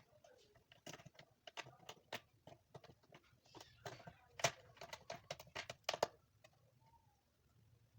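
Irregular run of sharp clicks and taps from hard objects being handled, with a short scraping rustle about midway. The clicks stop a little after six seconds in.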